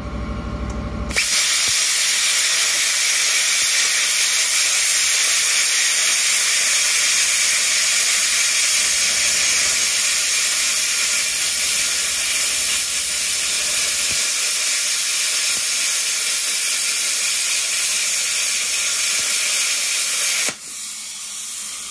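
Handheld plasma cutter cutting through steel bar: a loud, steady hiss of the arc and air jet that starts about a second in and cuts off suddenly near the end.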